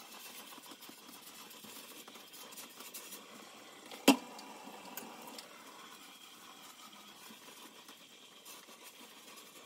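Handheld garment steamer running steadily while steaming a hanging shirt, with one sharp knock about four seconds in.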